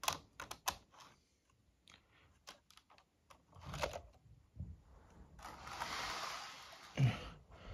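Sharp plastic clicks and taps as a model train boxcar is set onto the track and pressed into its coupler against the tender. Later comes a rustle lasting about a second and a half, then a single thump.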